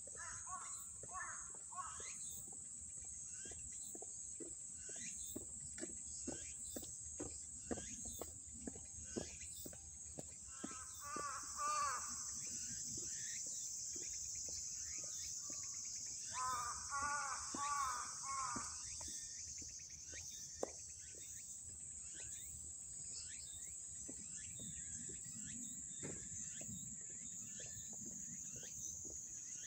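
Quiet outdoor ambience: a steady high chorus of insects, with regular footsteps of heeled shoes on wet asphalt. Two bursts of repeated bird calls come about ten and sixteen seconds in.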